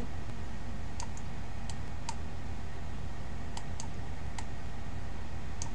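Computer mouse clicking about eight times at irregular intervals, some clicks in quick pairs, as objects are dragged and placed in 3D software, over a steady low hum.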